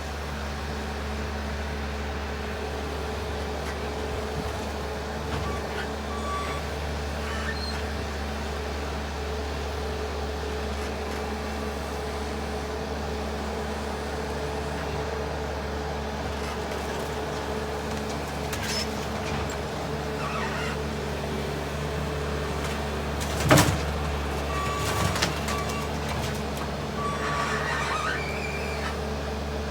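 Skid loader's diesel engine running steadily under work. About two-thirds of the way through, a single loud crash or bang is followed by smaller crunching and rattling, as the lean-to's boards and metal are pulled down.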